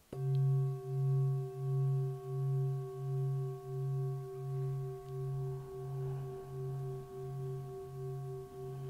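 Singing bowl struck once, then ringing on with a strong low hum and several higher overtones. The low tone wavers in a slow pulse, about twice a second, as the ring slowly fades.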